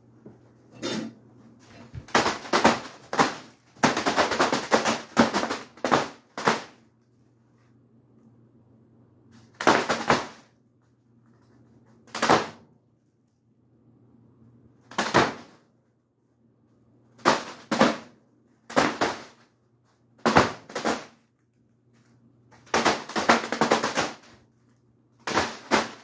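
Foil helium balloon being struck again and again by the spinning blades of a ceiling fan: about a dozen bursts of sharp, rapid smacks with quieter gaps between them, over the steady low hum of the fan.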